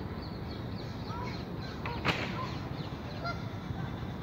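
Waterbirds on a lake giving many short calls over a steady low background rumble, with one sharp click about two seconds in.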